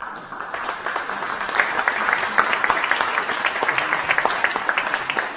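Audience applauding, a dense patter of many hands clapping that builds over the first second.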